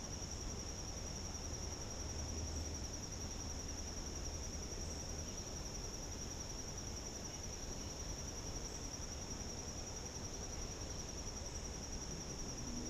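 Steady, high-pitched insect chorus, a continuous shrill trill that holds unchanged throughout, over a faint low background hiss.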